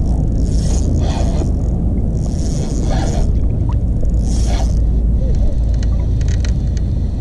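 Wind buffeting the microphone in a heavy, steady rumble, with water sloshing and lapping close by in hissy bursts every second or so. A quick run of faint clicks comes about three-quarters of the way through.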